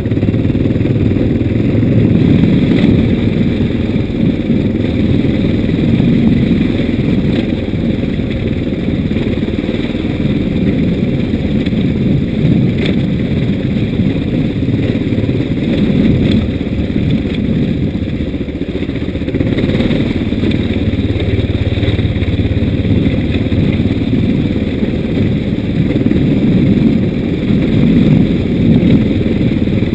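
Motorcycle engine running steadily while riding a rough dirt track, with a heavy rumble of noise in the low end.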